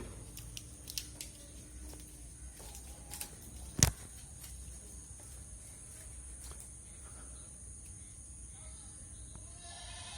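Goat shed ambience: a steady high-pitched hiss over a low hum, scattered small knocks with one sharp, loud knock about four seconds in, and a goat bleating near the end.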